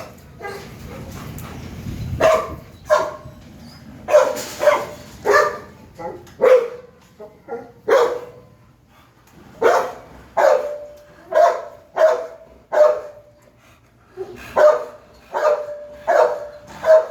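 A dog barking over and over, one bark roughly every half second to second, with a pause of about a second and a half mid-way. Some of the later barks trail into a short held whine.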